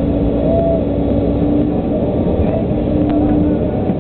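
Volvo EC140 LC excavator's diesel engine running steadily under load while it loads peat into a trailer, with a steady whine that swells briefly a couple of times.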